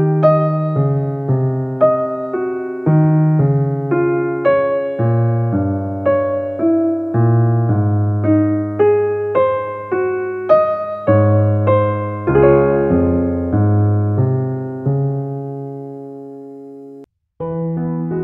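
Background music: a piano playing a slow melody over chords, each note struck and then fading. Near the end it breaks off for a moment and starts again.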